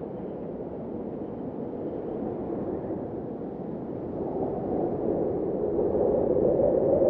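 Blizzard wind blowing as a low, rushing noise. A gust builds from about four seconds in and grows louder toward the end.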